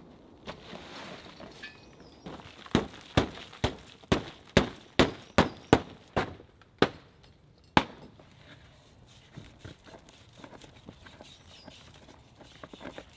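A long wooden pole striking a stretched plastic tarp: about a dozen sharp slaps at roughly two a second, stopping near the middle. They are followed by faint rustling and rope handling.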